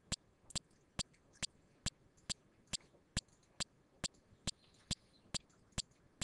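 Faint, sharp clicks in a steady, even rhythm, a little over two a second.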